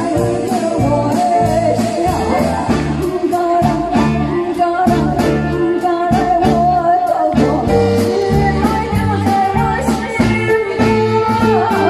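A woman singing a Japanese song into a microphone, backed by a live band with a steady drum beat and guitar.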